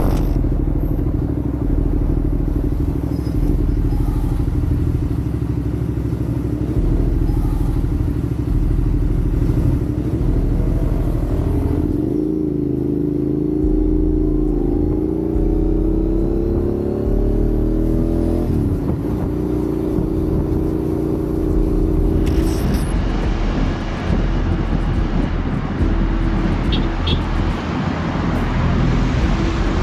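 Motorcycle engine heard from a camera on the bike while riding in traffic. The revs rise and fall between about twelve and eighteen seconds in. After a cut about twenty-two seconds in, a steadier engine runs under more road and wind hiss.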